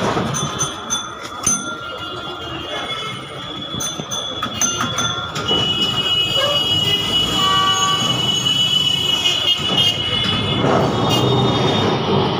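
Kolkata tram running on street rails, heard from inside the car: a rumble with clicks and knocks, then a steady high wheel squeal from about halfway through. A short horn beep sounds around two thirds of the way in.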